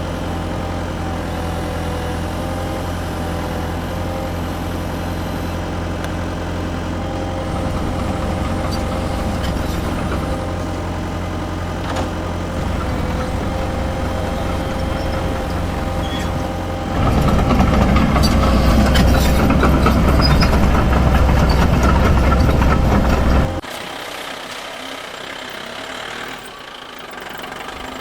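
Radio-controlled toy excavator working: a steady engine-like drone with a thin motor whine. It gets louder for about six seconds past the middle, then drops off sharply near the end.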